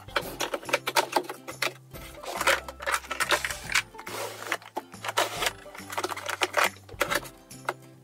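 Plastic makeup compacts and cases clicking and clacking as they are picked up and set down in a drawer, many short knocks in quick succession, over background music with a steady bass line.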